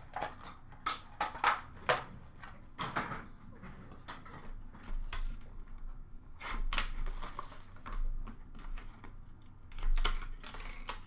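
Hands handling trading-card boxes and packaging: irregular clicks and taps with short bursts of rustling and crinkling, longer and louder about two thirds of the way in and again near the end.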